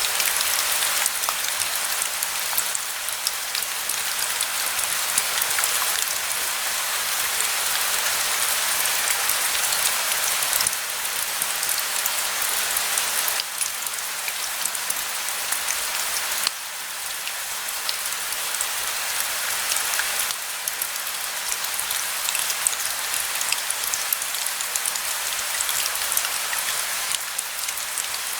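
Steady rain falling, a dense hiss dotted with the ticks of single drops, with no thunder. Its loudness steps up or down abruptly a few times.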